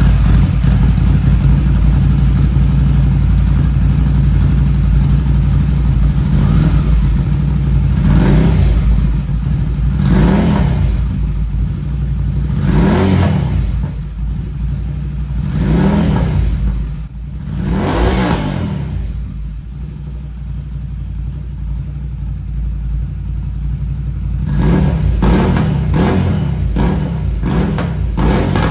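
Ducati Scrambler's air-cooled L-twin engine idling through a Termignoni exhaust with a twisted header, blipped to short revs about five times through the middle and several more times near the end.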